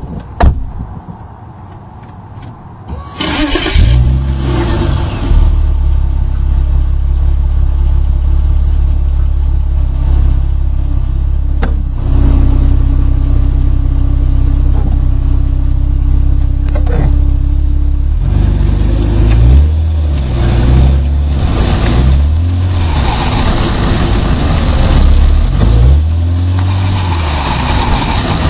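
A car door thumps shut, then the BMW E36 323i's 2.5-litre straight-six cranks and fires about three seconds in with a short rev before settling to idle, picked up from underneath the car. From about twelve seconds a steady whine sits over the idle, and later the engine note rises and falls repeatedly as the automatic car manoeuvres.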